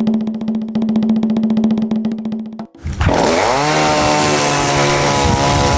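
A fast drum roll, cut off near the middle. A chainsaw engine then starts running loud and high, its pitch sliding down within the first second before holding steady.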